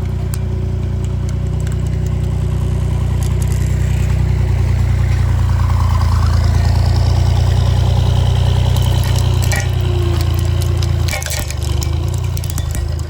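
Road roller engine running steadily with a low hum, growing louder through the middle and dropping off about eleven seconds in. Sharp cracks and clicks come near the end.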